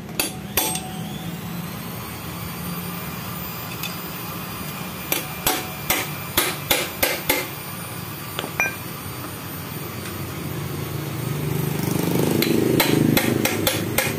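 Hammer tapping on a Honda Megapro motorcycle engine's crankcase to split its two halves apart: sharp knocks in groups, a pair at the start, a run of about eight in the middle and a quick cluster near the end. A low rumble swells under the last taps.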